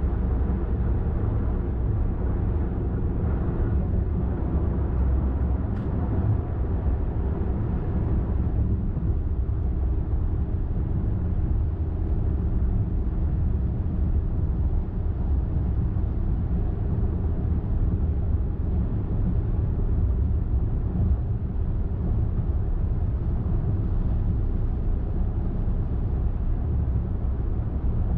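A car cruising at steady speed on a highway, giving a continuous low rumble of road and engine noise with a faint steady drone from the drivetrain.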